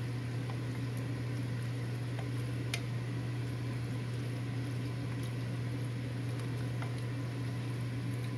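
Pasta in tomato sauce simmering in a pot on the stove over a steady low hum, with a few faint ticks.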